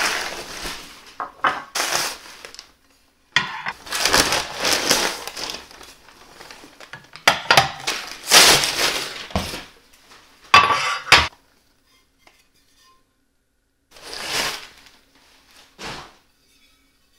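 Bubble wrap and packing paper rustling and crinkling in several bursts as ceramic bowls and plates are unwrapped, with short clinks and knocks of the ceramic dishes being handled and set down.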